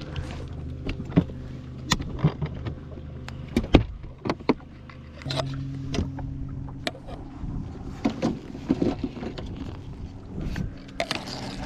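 A boat's motor running steadily, a low hum that grows louder about five seconds in. Scattered sharp knocks and clicks sound over it, the loudest a little before the four-second mark.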